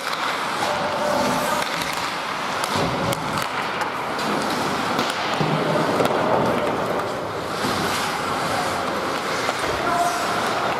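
Ice hockey play in a rink: skate blades scraping and carving the ice, with occasional sharp clicks of sticks and puck.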